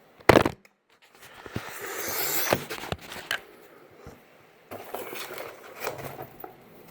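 Handling noise of searching through a smoke alarm's box and packing: a sharp knock just after the start, then rustling, crinkling and scraping for a couple of seconds, and lighter clicks and scrapes later on.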